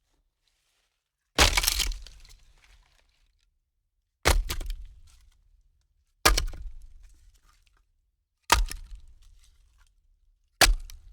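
Logs being stacked: five heavy knocks of wood on wood, about two seconds apart, each followed by a short clatter as the log settles on the pile. The first knock has the longest clatter.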